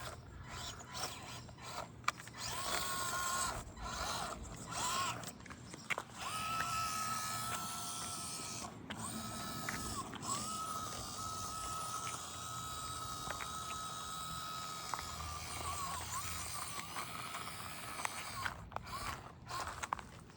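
1/24-scale RC crawler's small brushed electric motor (an Injora 050 66-turn) and gearing whining as it drives: short throttle bursts for the first few seconds, then a mostly steady run of about ten seconds with a few brief dips in pitch.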